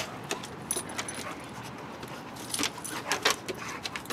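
Two dogs play-fighting, the metal tags on one dog's collar jingling irregularly amid quick scuffling clicks, busiest a little past the middle.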